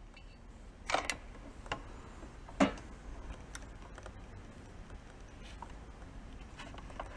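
A few light knocks and clicks of handling, about four in the first three seconds, as the air compressor's cylinder is carried and set down, then only a faint low background hum.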